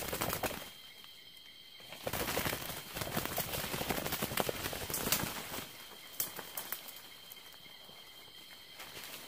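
Rustling and crackling, as of dry bamboo leaves and brush being disturbed, in two bouts with a lull between. A faint steady high tone runs underneath.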